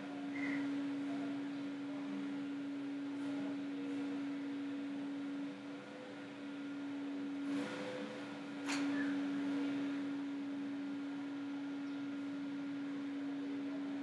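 Steady hum on one pitch, with a faint background hiss and two faint clicks about eight and nine seconds in.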